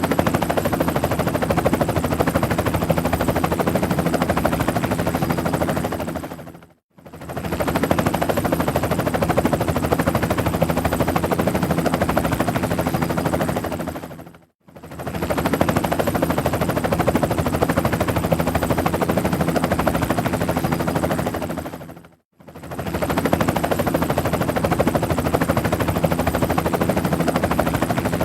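Helicopter rotor blades chopping rapidly and evenly over a steady engine hum. The recording is a loop that fades out to brief silence and back in about every seven and a half seconds, three times.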